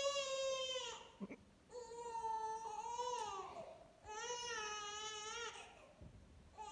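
Newborn baby crying: three long wails with short gaps for breath between them, and a fourth starting at the very end.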